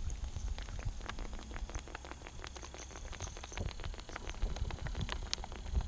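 Many small, irregular splashes pattering on the water surface like rain, over a low rumble: fish dimpling and breaking the surface.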